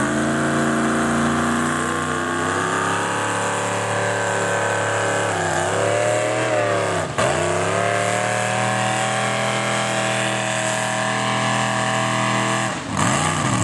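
Pulling tractor's engine running at high revs under load as it drags a weight transfer sled down the track, its pitch sagging and recovering about halfway through and dipping again near the end.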